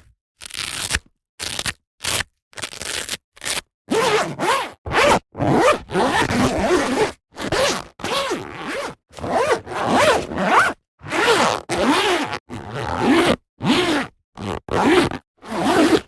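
Zipper on a canvas bag pulled open and shut in a series of short strokes, each up to about a second long with brief silences between; each stroke carries a buzz whose pitch rises and falls with the speed of the pull. The first few seconds hold shorter, quieter handling sounds of the canvas.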